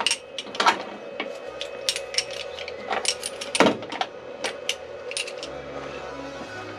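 Metal hand tools and small parts clinking and clattering as they are picked up, set down and tidied away, with irregular sharp clinks throughout.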